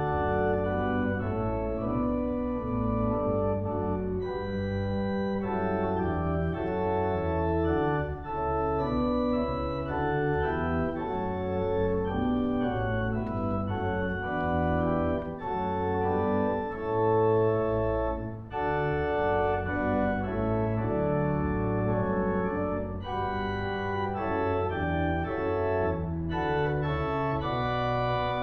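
Church organ playing a hymn in full, sustained chords, with a bass line moving underneath.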